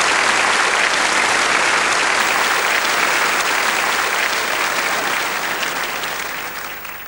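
Large theatre audience applauding, a dense steady clapping that fades away over the last couple of seconds.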